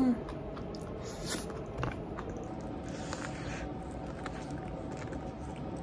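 A person quietly eating bread and pastries: soft chewing and biting, with scattered faint clicks over a low steady background.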